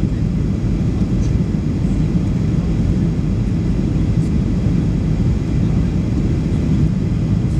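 Steady low roar of a Boeing 737 airliner's engines and airflow, heard from inside the passenger cabin during the descent to land.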